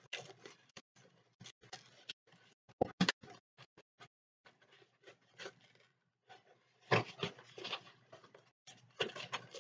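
Plastic wrapping being picked at and peeled off a movie disc case: faint, scattered crackles and clicks, with a brief louder cluster about three seconds in and a few short rustles near the end.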